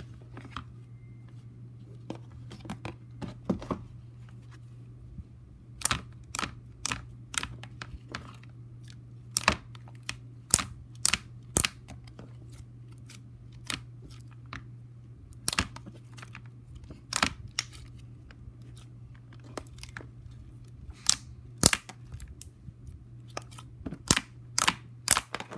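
Slime being squished and stretched by hand, giving off sharp, irregular clicks and pops, with a steady low hum underneath.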